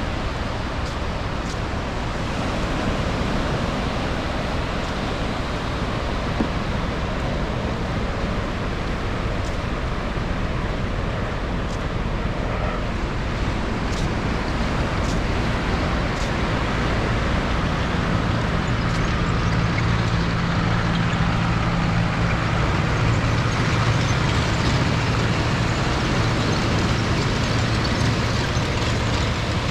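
Steady wash of ocean surf and wind, with a motor vehicle's low engine drone coming in about two-thirds of the way through and holding.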